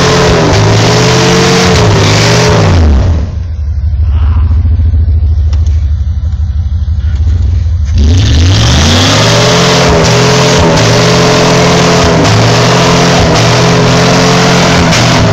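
Lifted Jeep Grand Cherokee's engine revving hard under load as it climbs a steep, muddy slope. The revs fall away about three seconds in, run lower for several seconds, then climb again and hold high until they drop off near the end.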